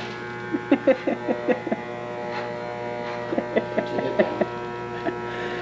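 Electric hair clippers buzzing steadily, with two runs of short irregular clicks over the buzz, about a second in and again around four seconds in.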